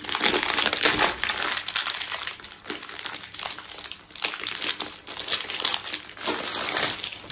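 Clear plastic packaging bag crinkling and rustling as hands work a rolled diamond-painting canvas out of it. It is loudest in the first second and a half and again near the end.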